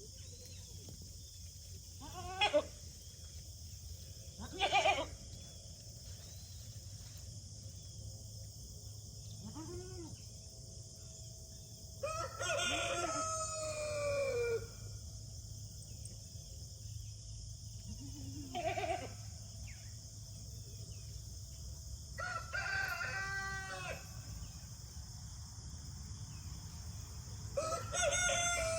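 A rooster crowing three times, each crow about two seconds long and falling in pitch at its end, with a few short animal calls in between.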